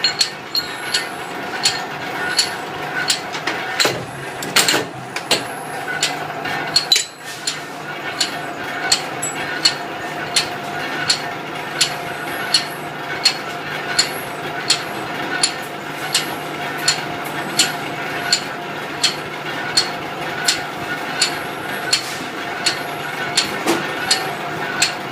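Punch striking metal in an even rhythm, a little under two blows a second, over a steady machine hum, with a few louder irregular knocks about four to seven seconds in.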